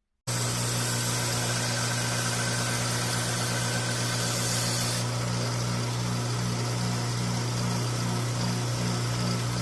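Belt grinder with an 80-grit belt running steadily while grinding the forged knife blade: a constant motor hum under a loud, dense hiss. It cuts in abruptly, and the hiss thins slightly about five seconds in.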